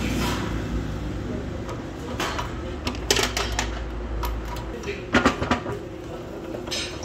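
A low machine hum that drops away a little past halfway, with sharp metal clanks and clinks as twisted steel bars of a wrought-iron basket are handled, loudest about three seconds in and again near five seconds.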